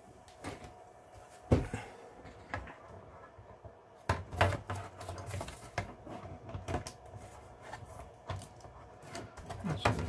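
Acer Aspire V3-574 laptop's plastic bottom case being handled and lowered onto the chassis: scattered clicks and knocks of plastic against plastic, the sharpest about a second and a half in.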